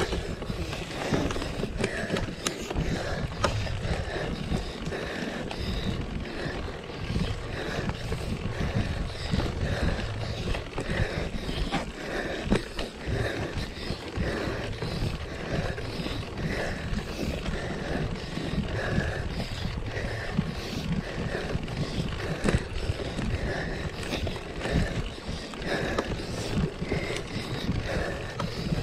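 Mountain bike rolling over rough ground: steady tyre rumble and rattling, with many small knocks and a soft sound repeating about once a second.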